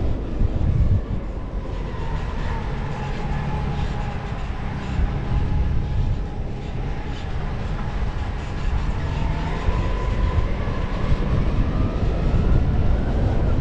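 Toyota Land Cruiser 70-series (LC71) on the move: a steady low engine and road rumble, with a faint whine that dips in pitch and then climbs again over the middle seconds.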